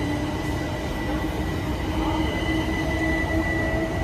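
Great Northern class 387 electric multiple unit moving past along the platform: a steady whine at several pitches from its traction equipment over a constant low rumble of wheels on rail.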